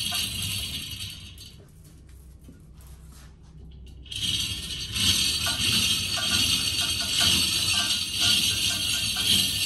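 Steel chains of manual chain hoists rattling and jingling as the hand chains are worked, with repeated metallic clinks. The rattling dies down about a second and a half in and picks up again about four seconds in.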